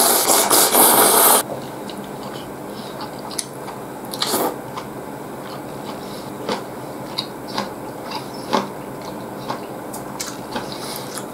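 A person slurping ramen noodles loudly for about a second and a half, then chewing, with scattered small wet clicks and a shorter slurp about four seconds in.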